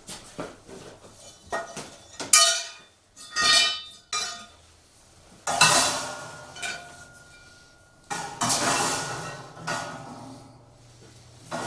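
Steel parts of a hitch cargo carrier and loose bolts and hardware clanking and clinking as they are handled and fitted. There are several sharp metal knocks, some ringing briefly, and a longer scraping noise about eight seconds in.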